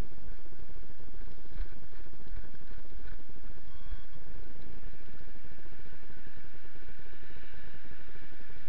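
Steady low rumble of wind buffeting the microphone of a body-worn camera, with a constant higher hiss over it and a few faint clicks.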